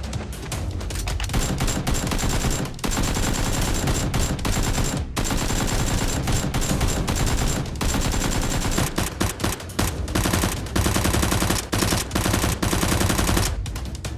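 Sustained rapid automatic gunfire, dense runs of shots with short breaks about three, five and eight seconds in.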